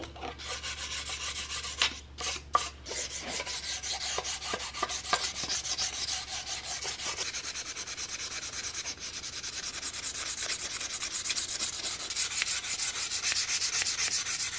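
400-grit sandpaper rubbed by hand over a bare walnut rifle stock in quick, even back-and-forth strokes: the final light sanding of the wood before it is oiled. A few knocks come about two seconds in, and then the strokes run on without a break.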